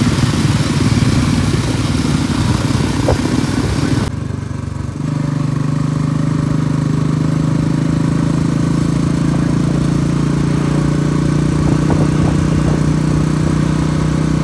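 Motorcycle engine with loud rushing noise while riding. About four seconds in, the sound cuts abruptly to a steady, even engine hum.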